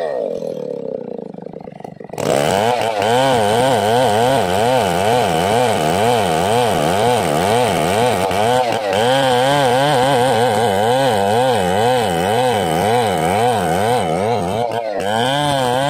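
Two-stroke chainsaw ripping a matoa log lengthwise: the engine falls off toward idle at first, then opens up about two seconds in and runs hard under load. Its pitch wavers steadily up and down as it cuts, with a brief dip near the end.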